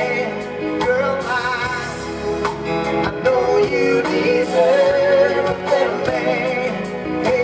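A live soul band playing while a male lead singer holds long, wavering notes.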